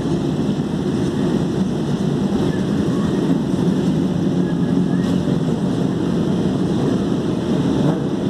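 Many sport motorcycle engines idling together in a packed queue, a dense steady rumble.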